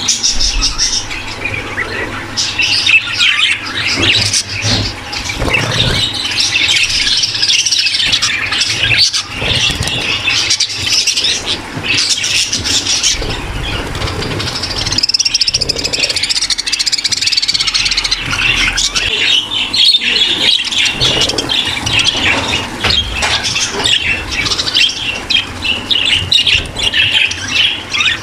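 A flock of budgerigars in a breeding aviary calling and chattering together, many high calls overlapping without a break. It is the excited flock sound of budgies in breeding condition.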